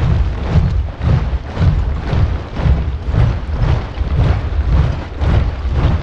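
A large body of soldiers marching in step, heavy boot stamps landing together about twice a second.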